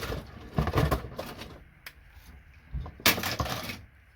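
Connectors being pried and snapped off a scrap computer circuit board: rattling clicks and cracks in two clusters, with a single sharp click between them.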